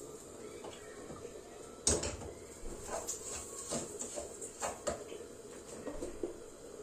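A pot lid being handled and a wooden spoon stirring and knocking against a small cooking pot: one sharp clack about two seconds in, then a run of lighter, uneven knocks and scrapes.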